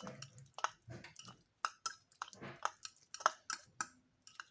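A fork stirring a sauce of chopped greens, ketchup and mayonnaise in a bowl: quick, irregular clicks of the fork against the bowl with a wet squish of the thick mix.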